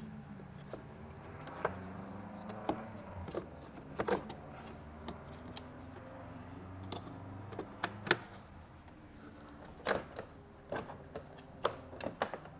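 Plastic cowl trim panel being fitted back into place by hand: a string of irregular clicks and knocks as it is positioned and snapped in, over a low steady hum.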